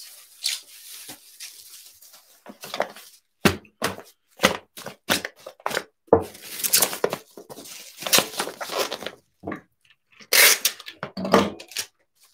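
Packing a shipping order by hand: an irregular run of rustles, crinkles, scrapes and knocks as bags of ground coffee and packaging are handled on a table, louder near the end.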